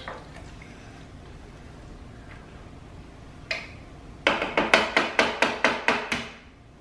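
A wooden spoon knocked against the rim of a slow cooker's crock to shake off the stew: one knock, then a quick run of about ten sharp taps over two seconds.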